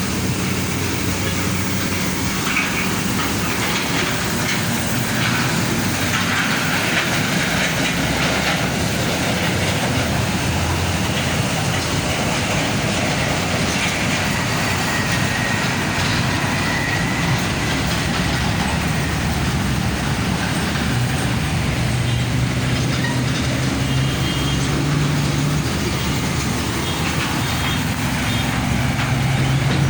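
Heavy road traffic: big trucks driving past, with a steady rumble of engines and tyres on the road.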